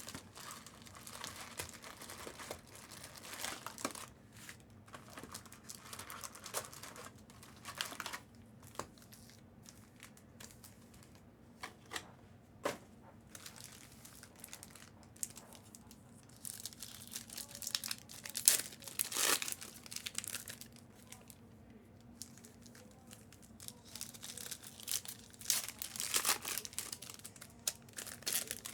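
Packaging crinkling and rustling as it is handled, in irregular spells with sharp little clicks, busiest about two-thirds of the way through and again near the end, over a faint steady hum.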